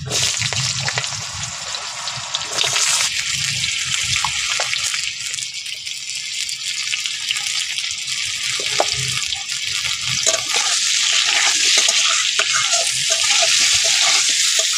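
Raw potato wedges sizzling in hot oil in a metal kadai, the sizzle starting suddenly as they go in and growing louder in the second half. A metal spatula stirs and scrapes against the pan near the end.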